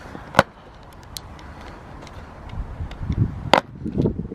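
Stanley knife being worked into the casing of an all-weather football to puncture it: two sharp taps, one about half a second in and one near the end, with low rubbing and thudding of the ball being handled in between.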